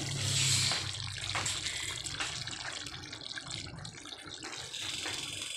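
Chicken afritada sauce simmering in a pan on the stove: a hiss that eases off about a second in, then soft bubbling with a few small pops.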